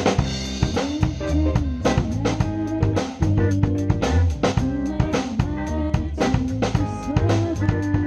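Live band playing a funk-style rock cover: drum kit keeping a busy beat on snare, bass drum and cymbals, with bass guitar, electric guitars and a melody line that bends up and down in pitch.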